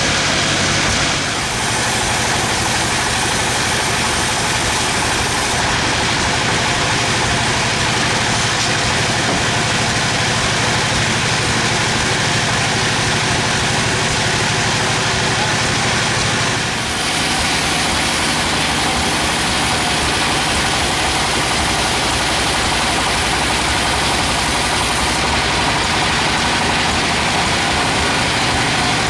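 Bandsaw sawmill running with its engine: a loud, steady hiss over a low engine hum. The sound changes abruptly about a second and a half in and again about 17 seconds in.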